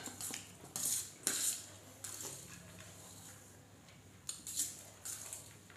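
Steel spoon scraping and clinking on a stainless steel serving plate as biryani is served, in scattered short strokes: several in the first second and a half, more from about four seconds in.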